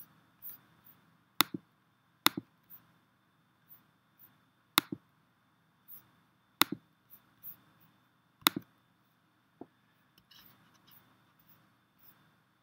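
Computer mouse clicks: five sharp clicks spread over about eight seconds, each a press followed a split second later by a quieter release, with fainter ticks between them.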